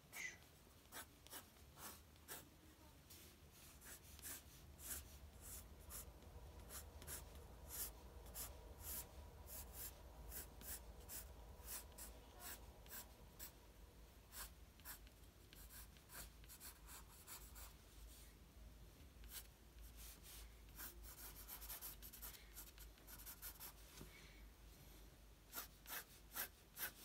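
A pencil sketching on drawing paper: many quick, short, faint scratching strokes, the light feathered lines of spiky hair.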